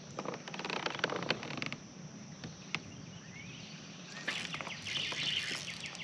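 Quiet outdoor ambience with scattered small clicks and taps, clustered in the first two seconds and again near the end, and a few faint bird chirps.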